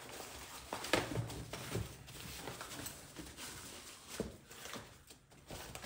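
Rustling and scattered light clicks and knocks from handling the stroller's fabric storage basket and plastic-and-metal frame during assembly, the loudest knock about a second in.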